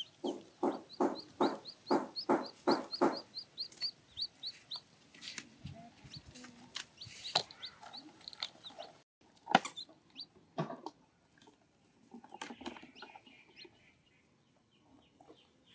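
Chickens: a quick run of about eight clucks in the first few seconds, with young chicks' short high cheeps over them. Then scattered cheeps and a few clicks.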